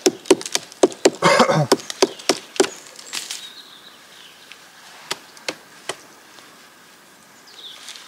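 Knife blade chopping and prying chaga (birch conk) off a birch trunk. A quick run of sharp knocks into the hard fungus with a brief scraping crunch comes first, and about three seconds in it thins to a few single knocks.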